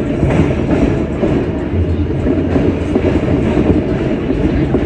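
R160A subway train running between stations: a steady, loud rumble of wheels on rail, with a few faint clicks as the wheels pass over rail joints.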